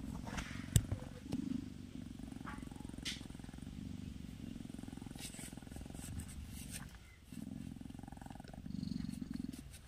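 Mother cat purring steadily, with a short break about seven seconds in and a single small click in the first second.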